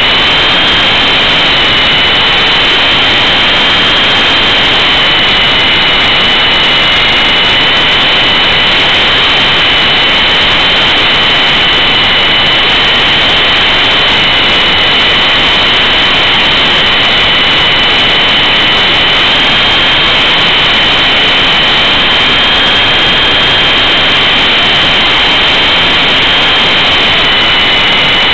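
The electric motors and coaxial rotors of an E-sky Big Lama RC helicopter in flight, heard loud and close from a camera mounted on the helicopter. Two high, steady whines sit over a dense rushing noise of the blades.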